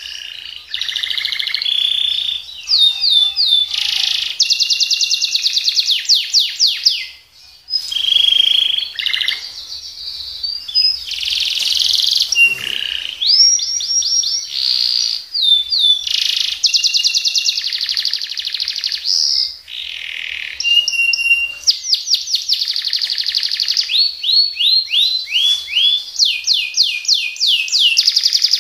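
Domestic canary singing a long, almost unbroken song of fast trills and rapidly repeated high notes: the 'roll' and 'tembak' phrases prized by canary keepers. There is one short pause about seven seconds in.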